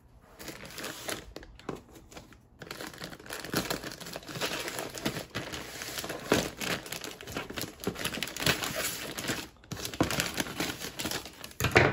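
Plastic poly mailer bag crinkling as it is handled and cut open with scissors. A dense run of crackling starts about two and a half seconds in and goes on until near the end.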